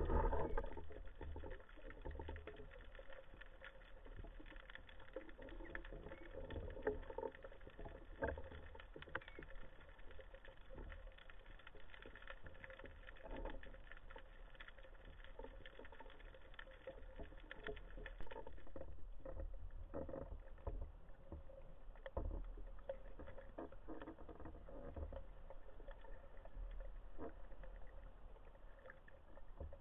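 Underwater ambience picked up by a diver's camera: a faint, steady crackle of many small clicks over a soft water hiss. A louder rush at the very start fades away within about a second.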